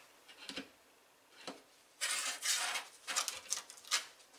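Steel brake and clutch pedal assembly being handled on a metal workbench: scattered light metal clinks and rattles, with a brief scraping noise about two seconds in.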